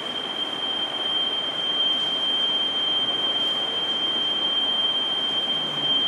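Electronic voting machine control unit's buzzer giving one long, steady high-pitched beep while the unit clears its stored votes, over a steady hiss.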